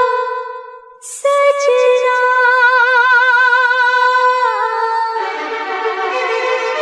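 Background music: a melody of long held notes with vibrato, fading to a brief break about a second in, then resuming and growing fuller about five seconds in.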